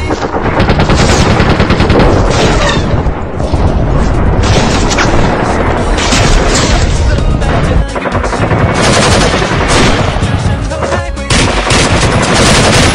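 Rapid machine-gun-style gunfire over loud background music.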